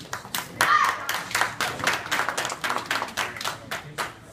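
A rapid, irregular series of sharp hand slaps and strikes during a kenpo self-defense technique, with a short shout about half a second in.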